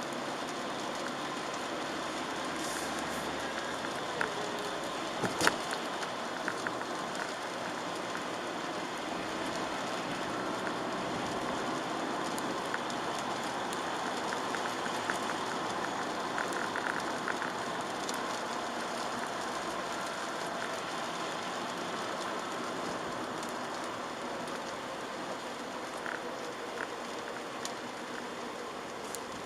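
Steady noise of a Chevrolet Aveo driving in the rain: rain on the car and tyres on the wet road, with a few small clicks and one sharp knock about five seconds in.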